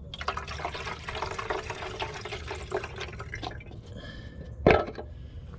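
Fuel pouring from a plastic gas can's spout into a hit-and-miss engine's fuel tank, a splashing pour for about three and a half seconds. One sharp knock near the end.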